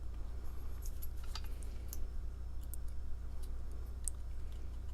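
Scattered faint clicks and ticks of small metal tools and lock parts being handled on a bench, over a steady low hum.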